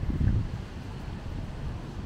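Wind buffeting the camera microphone: a gusty low rumble, strongest about a quarter to half a second in.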